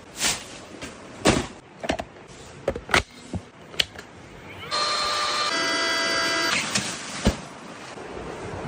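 A series of knocks and clicks, then a small electric motor whining steadily for about two seconds, shifting pitch once partway through.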